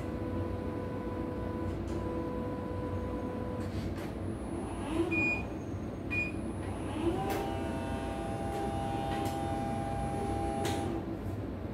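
Portable embroidery machine being run on test: its motor gives a steady whine for a few seconds, stops, then whines again near the end with a fuller tone. A few clicks and two short beeps come in between.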